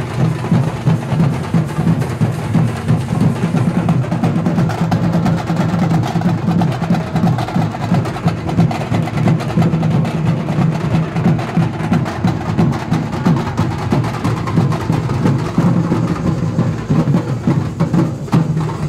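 A group of Tamil frame drums (thappu) beaten fast with sticks in a continuous, loud rhythm.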